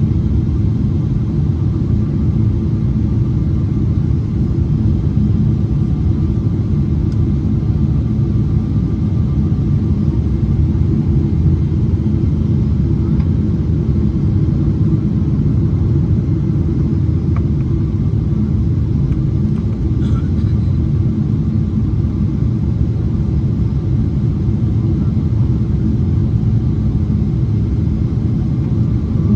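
Steady low cabin rumble of a Boeing 777-300ER on approach: the GE90 engines and airflow heard from inside the passenger cabin, with a faint steady whine above the rumble.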